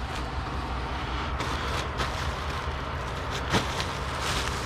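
A vehicle engine running steadily, with a few light knocks and clicks of items being moved about.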